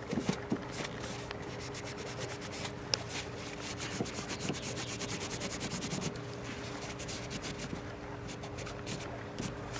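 Dry paper towel scrubbing carbon fouling off an AR-15 bolt carrier in quick back-and-forth strokes, a steady scratchy rubbing.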